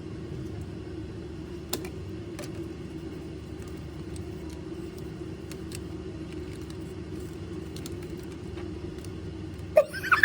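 A few faint, scattered clicks of small plastic toy-blaster parts being handled and fitted, over a steady low hum.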